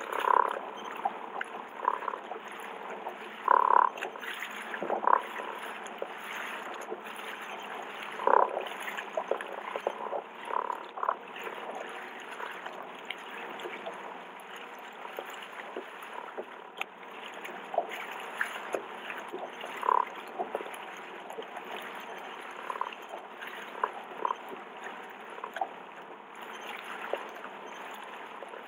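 Water lapping and gurgling against the hull of a small fishing boat on the sea, a steady wash broken by short irregular slaps and gurgles.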